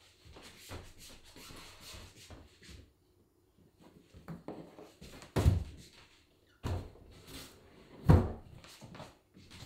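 Large cardboard iMac box being carried and handled with rustling noise, then set down on a wooden desk with heavy thuds, the loudest about halfway through and another near the end.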